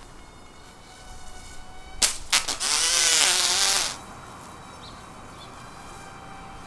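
Small electric propeller motor of a PowerUP 3.0 paper airplane running with a thin, steady whine. About two seconds in, a couple of sharp clicks and then a loud rushing burst with a wavering pitch for about two seconds, which stops abruptly before the whine carries on.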